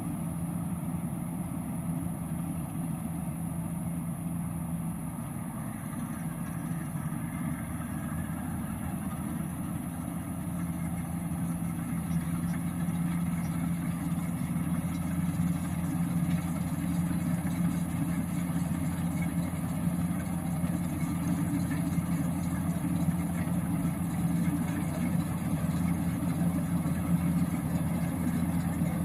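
An 88 hp combine harvester's engine running steadily with a low hum. It grows louder from about ten seconds in as the machine comes closer.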